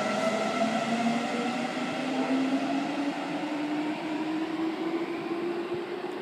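Seibu 9000 series electric train pulling away from the platform, its traction motors whining with several tones that climb steadily in pitch as it accelerates, over wheel and running noise that fades slowly as it draws off.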